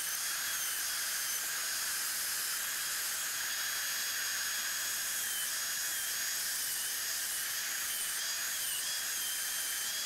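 High-speed dental handpiece (drill) running with a steady hiss and a high whine whose pitch dips briefly several times as the bur bites, cutting into a cast metal post where it meets the tooth root.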